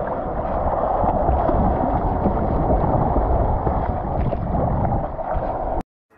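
Steady rushing noise of sea water and wind on the microphone, cutting off abruptly near the end.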